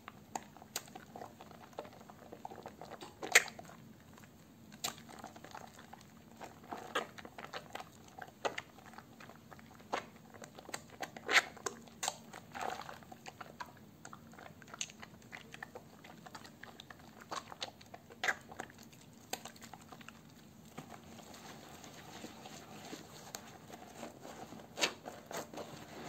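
Wet squelching of hands squeezing and lathering soaked, softened soap remnants in thick foam, with irregular sharp pops and clicks as the lather and soap squish between the fingers.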